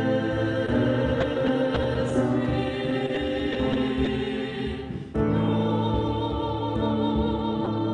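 A choir singing sustained chords, with a short break about five seconds in before the next phrase begins.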